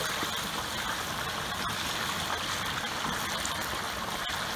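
Whole turkey deep-frying in a pot of oil at about 375°F: the oil boils up hard around the freshly dropped bird in a steady sizzling rush, with a few sharp pops.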